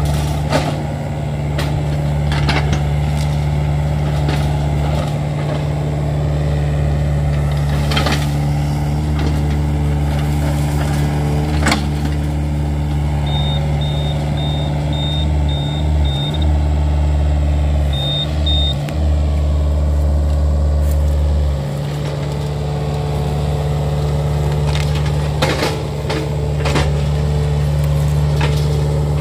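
Diesel engine of a Yanmar mini excavator running steadily, heavier under load through the middle, with scattered knocks and clanks as it tracks and works the soil. Midway, a run of short high beeps about two a second, then two more a couple of seconds later.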